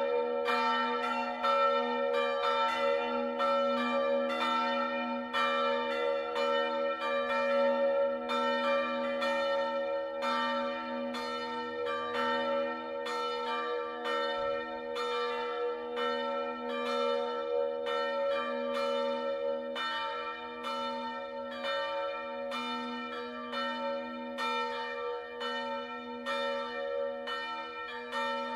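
Bells chiming a tune in a steady run of strikes, about two to three a second, each stroke ringing on into the next.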